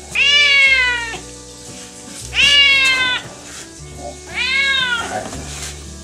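A domestic tabby cat meowing three times, each meow about a second long and sliding down in pitch toward its end.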